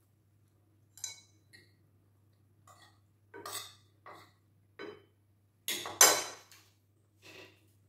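Spoon and fork clinking and scraping against a ceramic plate while eating: a series of short, irregular clinks, the loudest about six seconds in.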